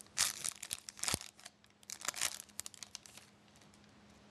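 A foil trading-card pack wrapper crinkling as it is torn open and handled, in a run of quick crackles that die away about three seconds in.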